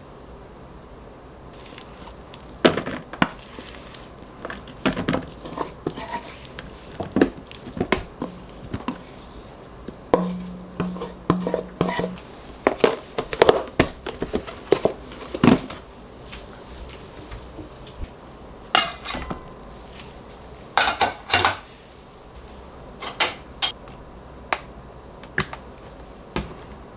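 Dishes and cutlery being handled: many separate clinks and knocks of tableware set down and moved, with a few longer scraping or rustling bursts in the second half.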